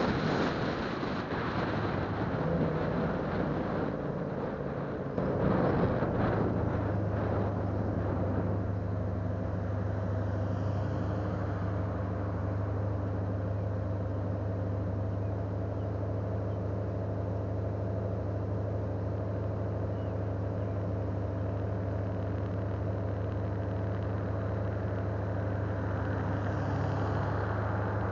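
Road and wind noise from a car driving, then, about six seconds in, the car's engine idling steadily with a low hum as it sits stopped.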